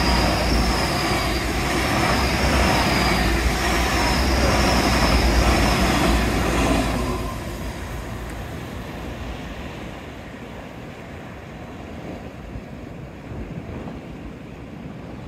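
GWR Hitachi Intercity Express Train passing close by at speed: a loud low rumble of wheels on rail with a wavering high whine over it. After about seven seconds it drops away as the train runs off into the distance.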